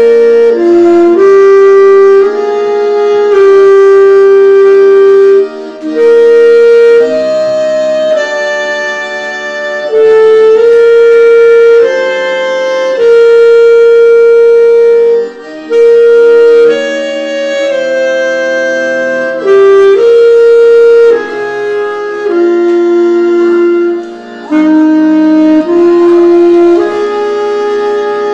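Alto saxophone playing a slow hymn melody: long held notes in phrases, broken by short pauses for breath.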